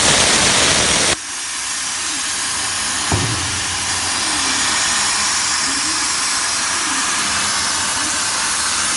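CNC plasma cutter's torch cutting steel plate: a loud, steady hiss of the plasma arc and its air jet. The hiss is louder for about the first second, then settles.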